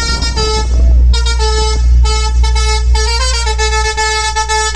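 An Aeromax 'carreta' musical horn on a tour bus playing a tune in loud held notes that step from one pitch to the next, over a heavy low rumble.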